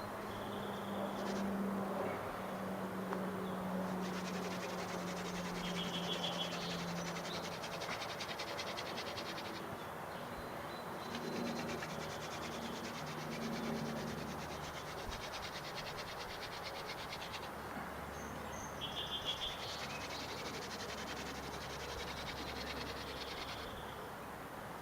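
Yucca hand-drill spindle spun between the palms, rubbing in a fresh hole in the wooden hearth board as it bores in and makes char, over birds and insects chirping.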